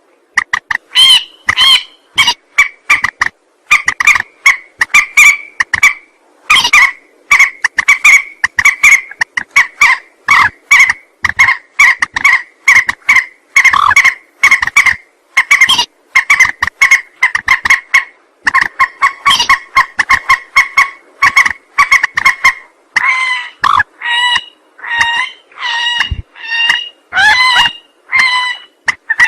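Mandar (rail) lure calls: a continuous run of short, harsh, rapidly repeated notes, several a second. About 23 seconds in they turn more varied, with notes that bend in pitch.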